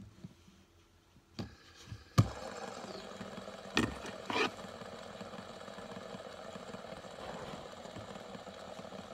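A stack of fidget spinners is flicked into a spin with a sharp click about two seconds in, then whirs steadily on its bearings. Two sharper clicks of handling follow about four seconds in.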